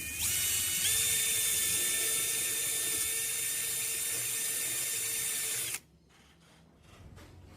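A small power-tool motor running steadily with a high whine over a hiss, its pitch stepping up twice in the first second, then cutting off suddenly about six seconds in.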